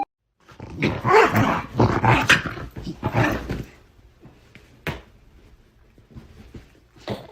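A dog growling and grumbling for about three seconds, rough and uneven, then going quiet apart from two short knocks.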